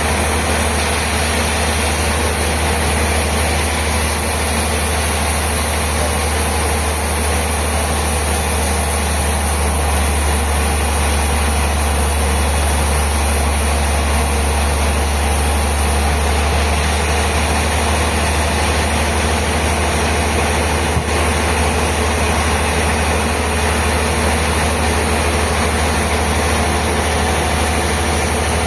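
Sawmill machinery running with a steady, unchanging low drone, with one sharp click about three-quarters of the way through.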